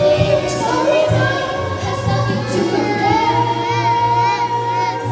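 A young singer performing a show song over backing music. The voice moves between notes, then holds one long note with vibrato in the second half, over a steady low bass note.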